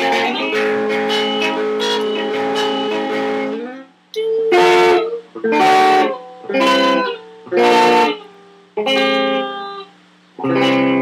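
Guitar chords: strummed chords ring on together for the first few seconds, then six single chords are struck one at a time about a second or so apart, each left to ring briefly, with a low steady hum underneath between them.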